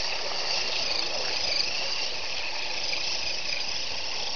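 Electric RC truck's Scorpion 2215 brushless outrunner motor whining at a high, wavering pitch as it drives through muddy water, over a steady hiss.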